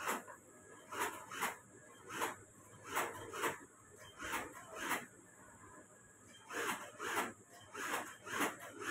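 Hands brushing and smoothing shirt fabric on a sewing table: a series of short rubbing swishes, often in pairs about half a second apart, with a pause a little past the middle.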